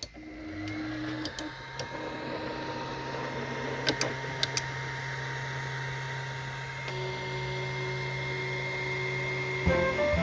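ENTINA Tina2 Plus desktop 3D printer running a print: its stepper motors hum and whine steadily, with a few sharp clicks about four seconds in. Music comes in near the end.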